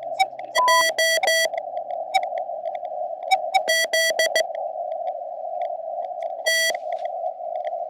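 Morse code (CW) heard on a portable QRP ham radio: groups of short beeps at one steady pitch come in bursts with pauses between them. A steady hiss of band noise runs through the radio's narrow receive filter underneath.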